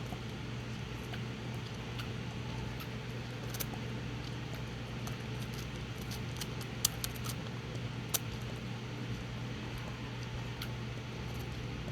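Scattered small wet clicks and ticks of a young squirrel feeding on milk formula, over a steady low hum.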